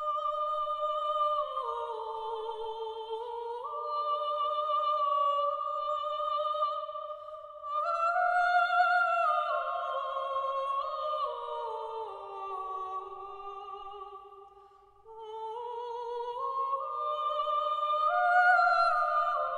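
Choir of eight high women's voices singing a cappella: long held notes that shift slowly in steps. The sound fades almost away about three quarters of the way through, then swells back up near the end.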